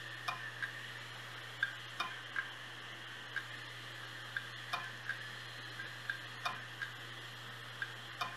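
Failed 1TB Toshiba hard drive running with its top cover off: the spindle motor spins the platter with a steady hum and whine, while the read/write head clicks irregularly, about twice a second. The clicks are the click of death: the head swings onto the platter, fails to read, and parks again.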